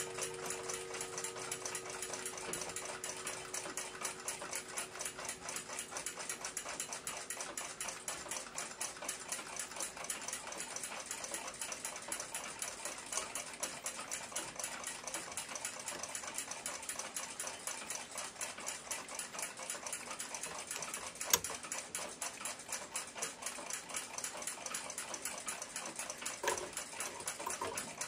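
Ansonia crystal regulator clock with an open Brocot escapement ticking in a steady, rapid beat, freshly cleaned and oiled and running well. One sharper click about three-quarters of the way through.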